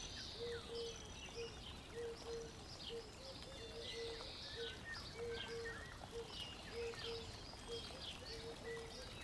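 Faint birds chirping, with many short high chirps and a low short call repeated steadily, often in pairs.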